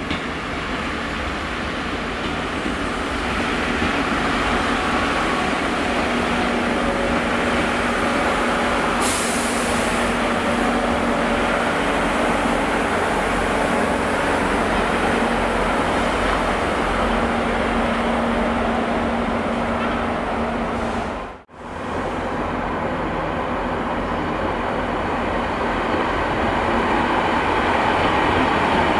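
Diesel multiple units running through a station. A Great Western Railway unit passes on a far line with a steady diesel engine drone. After a sudden brief drop-out about two-thirds of the way in, a Transport for Wales Class 150 Sprinter diesel unit approaches along the platform, growing louder toward the end.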